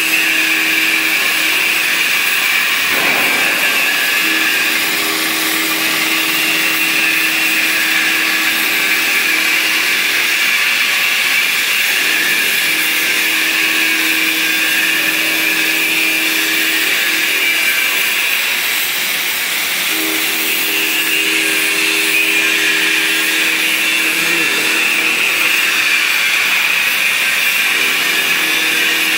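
CNC oxy-fuel cutting torch hissing steadily as its oxygen jet burns a circle through steel plate. Under the hiss runs a low hum that stops and restarts several times.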